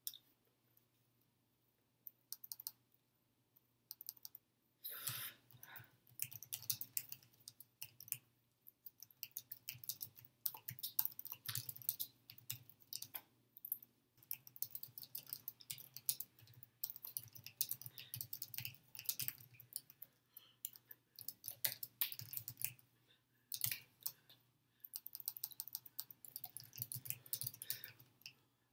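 Irregular soft clicks, taps and rustles of hands and clothing as a person signs in sign language, coming in uneven clusters over a steady low hum.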